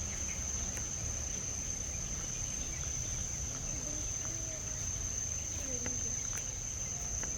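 Steady, high-pitched drone of insects, unbroken, over a low rumble.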